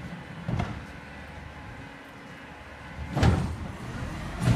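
Recycling garbage truck idling while its automated cart lifter raises and tips a plastic recycling cart, with loud clunks about three seconds in and again near the end as the cart is dumped into the hopper.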